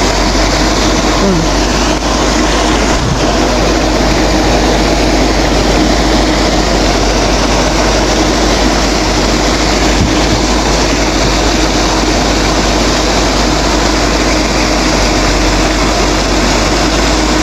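A motor or engine running steadily, a loud unbroken drone with a constant hum.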